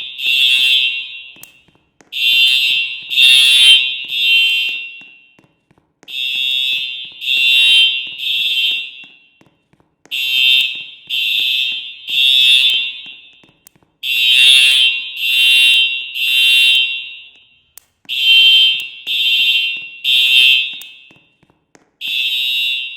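Building fire alarm sounding the temporal-three evacuation signal: three high-pitched beeps, then a pause, repeating about every four seconds.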